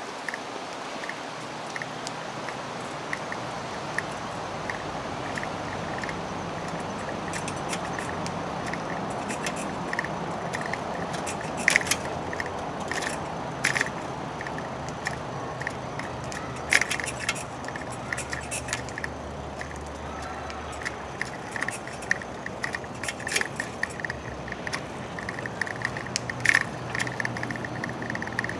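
Light clinking and jangling, like keys or small metal fittings, about twice a second in step with a walker's pace, with a few sharper, louder clinks, over a steady low outdoor hum.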